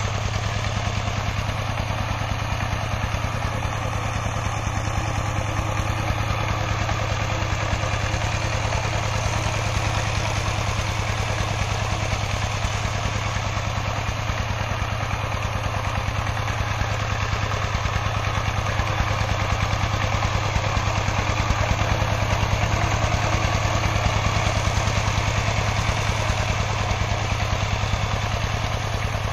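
Two-wheel power tiller's single-cylinder diesel engine running steadily, with a fast, even chug, as it pulls a wooden plank leveller across the field.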